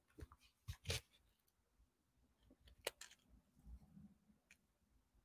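Near silence with faint handling of comic books as they are shuffled and lined up side by side: a few soft clicks in the first second, one sharper tap about three seconds in, and a faint rustle of paper near four seconds.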